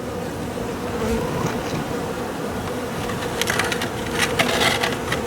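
Honey bees buzzing in a steady hum around an open hive. About three and a half seconds in comes a stretch of rustling and crackling from something being handled close by.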